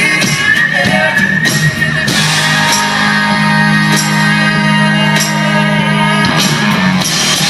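Live band playing an instrumental ending with electric guitars and drums, loud. About two seconds in, the band settles into a long held chord, with drum and cymbal hits over it.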